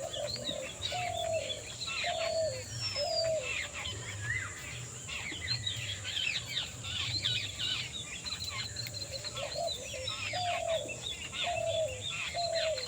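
Many small birds chirping and twittering at once in a dense chorus. Over it, a lower call of four short falling notes is heard near the start and again near the end.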